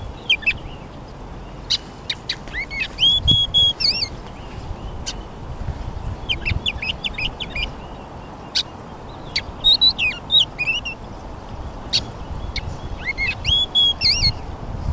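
Songbirds singing: short warbling phrases of quick chirps and whistled notes, repeated every three or four seconds, with single sharp chip calls in between, over a steady outdoor hiss.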